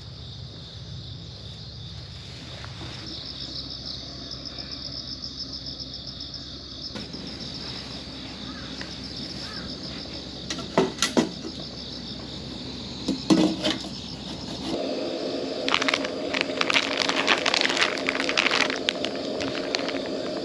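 Crickets and other insects chirping steadily in a high, even trill. Two sharp knocks come around the middle, and in the last few seconds a run of quick crackling clicks rises over the chirping.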